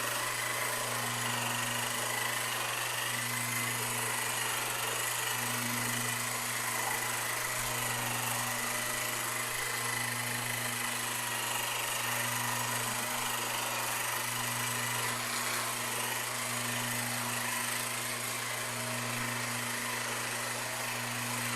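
Handheld electric massager running with a steady motor hum, swelling and easing about every couple of seconds.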